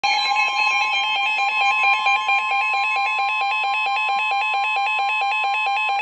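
Reecom NOAA weather radio sounding its warning alert: a loud, rapidly pulsing electronic beep over a steady high tone, signalling that a severe thunderstorm warning has been received.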